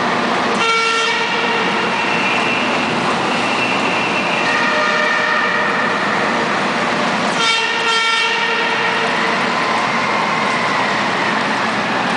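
Convoy of military vehicles running through a road tunnel, a steady engine and road din. Horns sound over it: a blast about a second long just under a second in, another about seven and a half seconds in, and other held horn tones in between.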